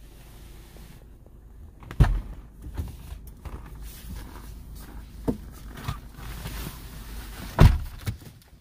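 A series of dull thumps and knocks with rustling between them. The two loudest come about two seconds in and near the end.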